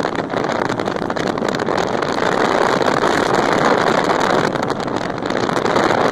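Steady rush of wind on the microphone held out the window of a moving 1997 Nissan Pathfinder, mixed with its tyres rolling over a gravel road.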